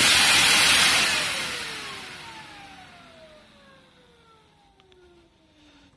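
Sanyo Denki San Ace 120 (9SG1212P1G03, 12 V 4 A) 120 mm fan running loud. About a second in, its power is cut and it spins down: the rush of air fades and the blade whine glides steadily lower in pitch over about four seconds, fading almost to nothing.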